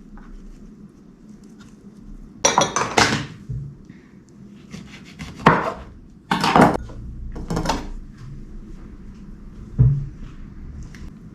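Utensils and food being handled on a wooden cheese board: a series of short scraping and clattering strokes, with a single low thump near the end.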